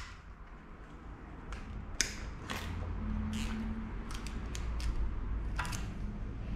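Metal timing chain and cam sprocket clinking and clicking as they are handled and fitted onto the front of a V6 engine block: a handful of sharp clicks scattered through, over a low steady hum.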